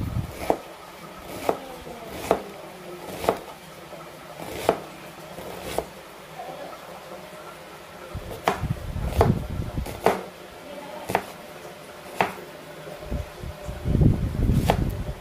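Kitchen knife dicing an onion on a wooden cutting board: sharp, irregular knocks of the blade striking the board, roughly one a second. There are duller, heavier thuds about halfway through and again near the end.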